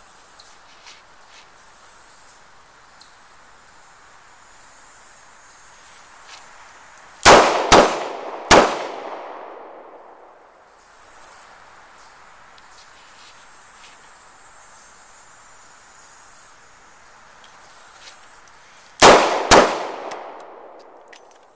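Smith & Wesson M&P 360 revolver firing the failure drill: two quick shots, then a third a little later (two to the body, one to the head). About ten seconds later come two more quick shots, each group trailing off in echo.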